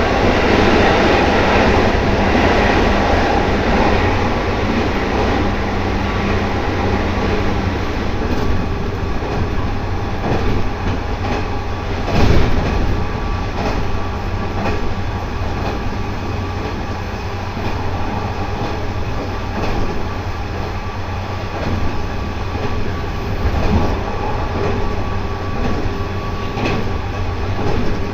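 JR 213-series electric multiple unit (motor car KuMoHa 213-6) running at full speed: a steady traction-motor hum over wheel-on-rail noise, with repeated rail-joint knocks. A louder knock comes about twelve seconds in.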